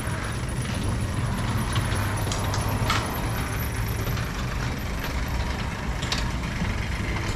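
Overhead sectional garage door closing: a steady mechanical running hum as it rolls down its tracks, with a few light clicks.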